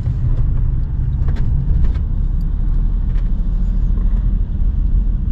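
Steady low rumble of a car's engine and tyres on the road, heard from inside the cabin while driving slowly, with a few faint clicks.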